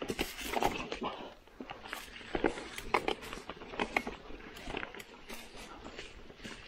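Mountain bike tyres rolling over dry fallen leaves and twigs on a dirt trail: an uneven rustling with many irregular clicks and knocks as the bike bumps along.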